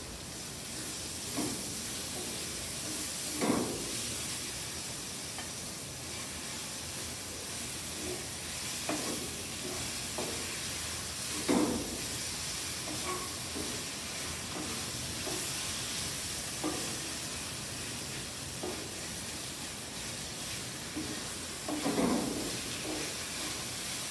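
Diced chicken and vegetables sizzling in a hot stainless steel wok, stirred with a wooden spoon that scrapes and knocks against the pan every few seconds.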